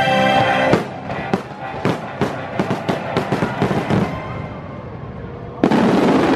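Aerial fireworks show: show music for the first moment cuts off abruptly. A quick run of sharp firework reports and crackles follows for about three seconds, then a quieter lull, then a sudden loud firework blast near the end.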